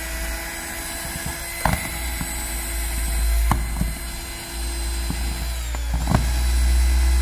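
Electric screwdriver running steadily as it backs out the crankcase screws of a STIHL FS 220 brushcutter engine, with a few sharp metal clicks. It stops briefly near six seconds in and then starts again.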